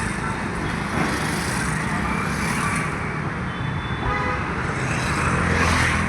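Road traffic: vehicle engines running steadily, with a short horn toot a little after three seconds in and a vehicle passing louder near the end.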